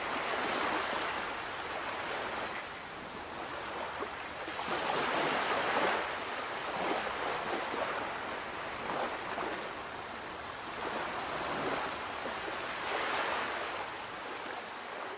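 Sea waves washing in, swelling and ebbing every few seconds.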